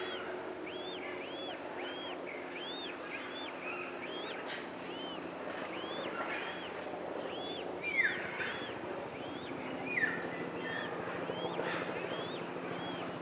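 Birds calling in an aviary: one bird repeats a short rising-and-falling chirp about twice a second, and a louder down-slurred call comes twice, about eight and ten seconds in, over a steady low hum.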